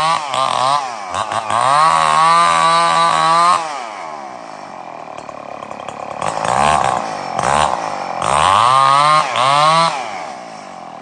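Stihl chainsaw engine revving: quick blips of throttle, then held at high revs for a couple of seconds, twice, dropping back to idle in between and again near the end.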